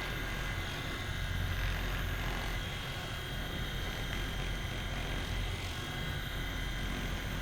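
Handheld percussion massager running steadily as it is worked along the hip tendons: an even low motor drone with a faint steady high whine.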